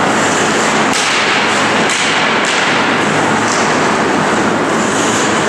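Ice hockey play in a rink: a steady rushing din with several sharp knocks and clacks of sticks, puck and boards, roughly one a second.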